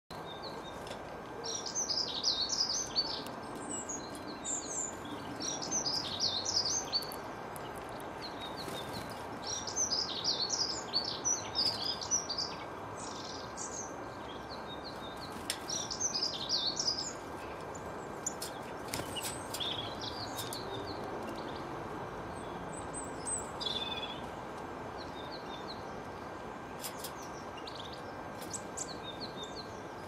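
Small garden songbirds chirping and twittering in quick, high phrases, coming in bursts that are densest over the first seventeen seconds or so and sparser after. A steady background hiss with a faint constant tone runs underneath.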